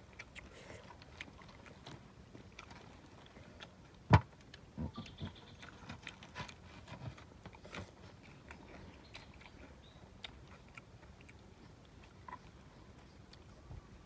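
Scattered clicks, taps and leaf rustles of a kitchen knife slicing roasted beef on a metal tray and lettuce being handled, with one sharp knock about four seconds in and a few softer thuds just after.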